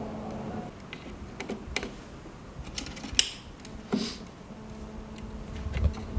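Scattered light clicks and taps of wire connectors being plugged into a heat press's replacement circuit board, with a couple of sharper clicks in the middle.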